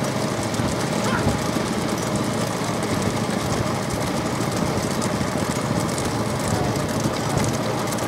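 Motor vehicle engine running steadily at speed, with road and wind noise.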